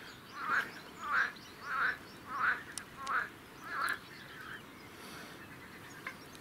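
A duck quacking in an evenly spaced series: six quacks, about one and a half a second, stopping about four seconds in.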